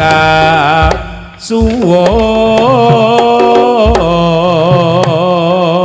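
Live Javanese jaranan music: a long, wavering melody held and ornamented over sharp drum strokes, dipping briefly about a second and a half in.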